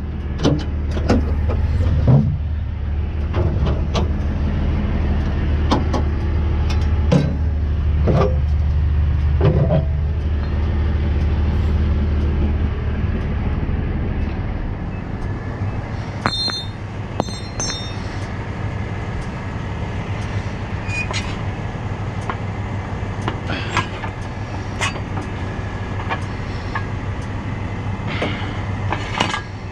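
Heavy truck engine running steadily at idle, with a low hum that is louder for the first half and then eases down. Sharp metal clanks and knocks come every second or two, with a short run of high ringing pings just past the middle.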